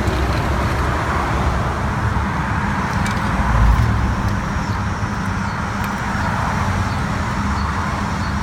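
Highway traffic passing steadily with a constant low rumble, one vehicle passing louder about three and a half seconds in.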